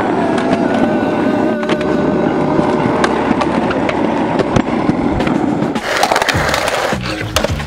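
Skateboard wheels rolling on concrete with a steady rumble and whine, broken by sharp clicks and slaps of the board during tricks and landings. Near the end the board scrapes along a concrete ledge in a grind.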